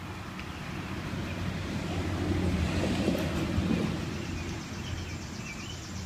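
A vehicle passing by: its noise swells about two seconds in and fades a couple of seconds later, over a steady low hum.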